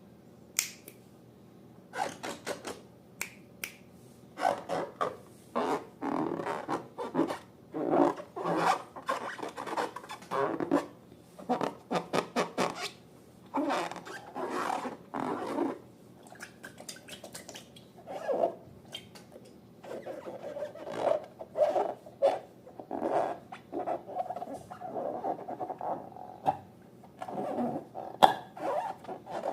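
Slime being squeezed, stirred and handled, making irregular wet squelching sounds and sticky clicks.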